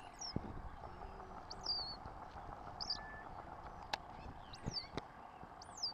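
High-pitched animal chirps, five or six short calls falling in pitch and spaced about a second apart, with a few sharp clicks between them.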